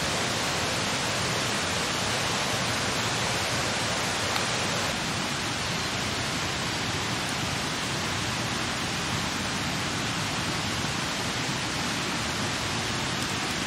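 Steady rushing noise with no distinct clicks or tones, dipping slightly about five seconds in.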